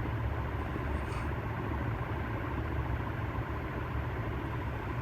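A 48-inch TAT industrial ceiling fan, with a UFO-style motor and steel blades, running steadily: an even low hum with a haze of moving air.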